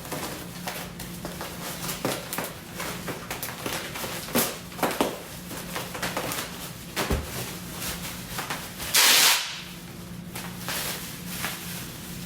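Plastic bubble wrap being pulled out and handled, crinkling with scattered small crackles and clicks and a louder half-second rustle about nine seconds in. A faint steady hum runs underneath.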